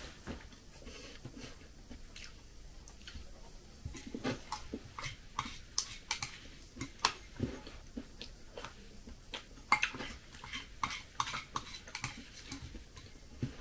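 Quiet eating sounds: a metal spoon clicking and scraping against a ceramic bowl of soupy porridge, with chewing and small mouth noises, the clicks coming more often from about four seconds in.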